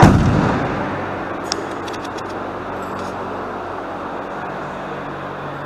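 Steady low mechanical hum of a workshop's background, opening with a loud low thump that fades over about a second, and a single sharp click about a second and a half in.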